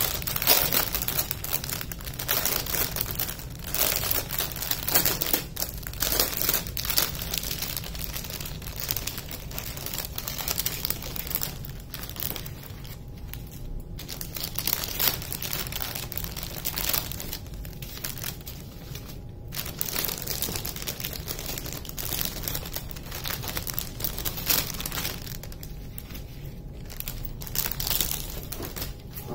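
Clear plastic wrapping and small plastic bags of diamond painting drills crinkling as they are handled and unwrapped, in irregular bursts with a few short pauses.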